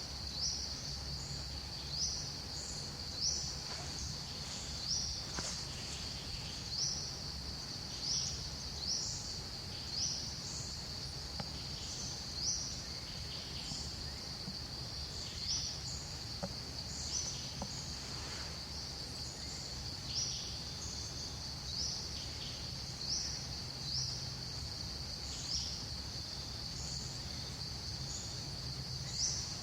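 Outdoor nature ambience: a steady high insect drone with a short rising chirp repeated irregularly about once a second, over a low steady rumble.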